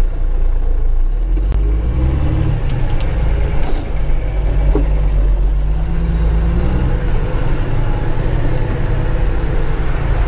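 Ford L9000 dump truck's diesel engine running under the driver's seat, heard from inside the cab, with its note climbing about two seconds in and again around six to seven seconds as the truck moves.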